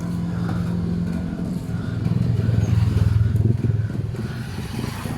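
A motor vehicle's engine running close by on the road, growing louder about two seconds in and easing off toward the end, as when a vehicle passes.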